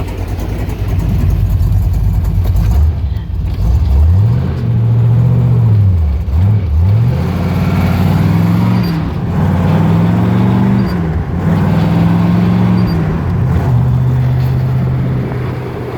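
1967 Chevrolet Corvette's V8 engine accelerating under way, its pitch climbing and dropping several times as it shifts up through the gears, then holding steady at a cruise near the end.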